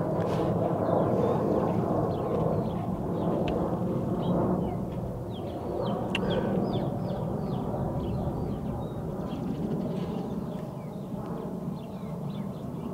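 Airplane flying over, its engine noise a steady low sound that gradually grows fainter. Small birds chirp over it.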